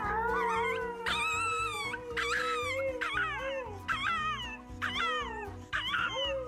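Small dog howling in a series of short, high cries that each fall in pitch, about one a second, with a lower, longer howl in the first few seconds, over background music.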